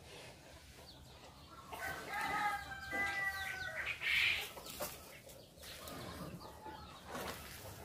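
A rooster crowing once, about two seconds in, followed by a brief loud noise about four seconds in.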